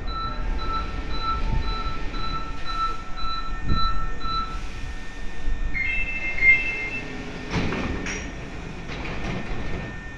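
Station platform screen door's electronic warning beeps, about three a second for roughly four and a half seconds. A different, higher two-tone chime follows as the door stands open. A stopped train hums underneath, with a few thumps near the end.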